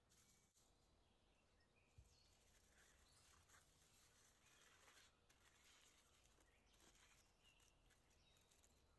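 Very faint crinkling of aluminium foil being folded and pressed around a potato by gloved hands, with a small knock about two seconds in.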